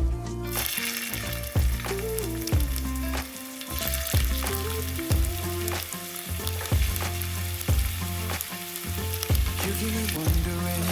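Food frying in oil in a pan, a steady sizzle that starts about half a second in, with a song's instrumental beat underneath.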